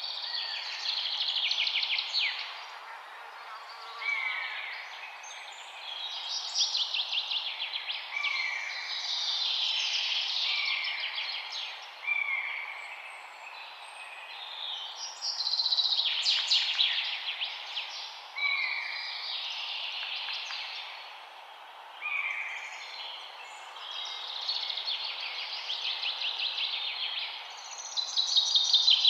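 Songbirds singing: a song phrase every two seconds or so, made of rapid trills and short falling notes, over a steady background hiss.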